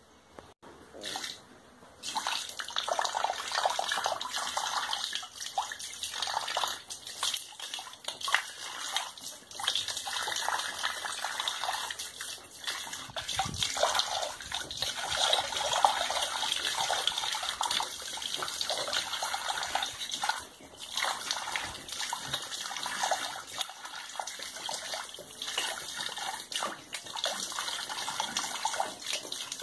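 Water running and splashing, poured out for pigs to drink; it starts about two seconds in and keeps on unevenly, with a short break about two-thirds of the way through.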